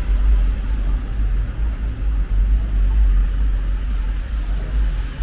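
City street noise: a steady low rumble of traffic that rises and falls unevenly, with a faint hiss above it.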